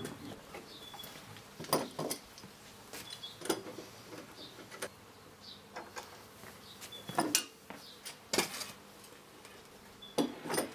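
Steel G-clamps being handled and screwed onto a wooden workbench: scattered clicks, knocks and clatters of metal against wood and metal, the loudest about seven, eight and a half and ten seconds in.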